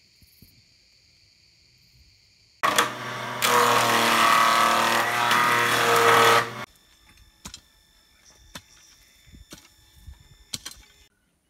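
A combination woodworking machine running loud for about four seconds as the operator works a piece of wood through it, with a steady hum under the cutting noise. After it cuts off, a few sharp knocks about a second apart.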